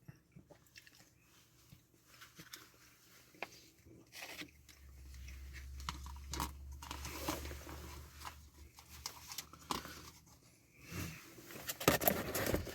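A person chewing a mouthful of macaroni and cheese with chicken nuggets, with small wet mouth noises and scattered clicks. A low hum comes in about four seconds in and fades out about ten seconds in.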